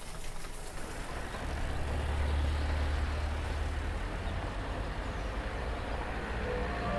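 Low rumble of a heavy road vehicle over a steady noise, swelling about a second and a half in and easing off after the middle.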